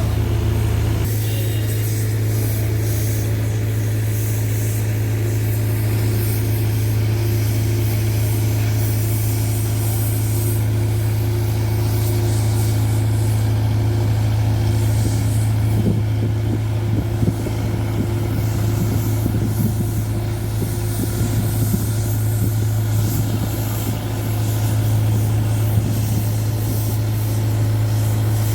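Heavy diesel engine of road-construction machinery running steadily at a constant speed with a strong low hum, and a few light clicks and knocks partway through.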